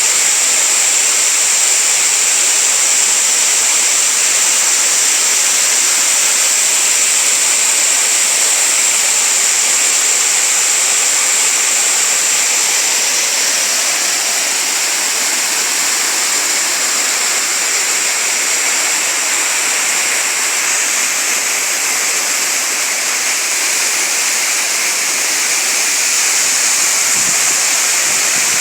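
Waterfall and stream water falling and rushing in a steady, loud hiss without let-up.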